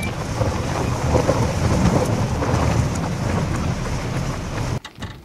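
Jeep driving along a rough, potholed dirt track: dense, steady engine and road noise that cuts off abruptly near the end.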